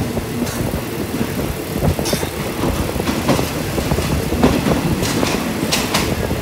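Passenger train carriage running along the track, its wheels clattering and the car rattling, heard loudly through an open window. Irregular sharp clicks from the wheels and the carriage stand out above the steady running noise.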